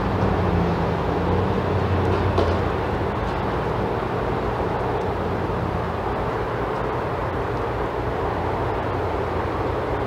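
Steady rumble of engine or machinery noise, with a low hum that fades about two seconds in.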